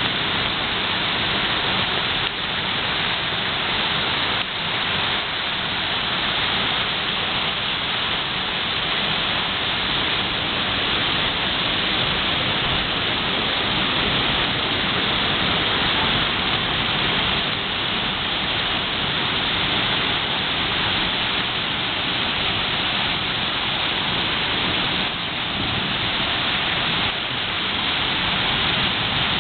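Heavy rain falling steadily during a thunderstorm, an even hiss of downpour with no clear thunderclap.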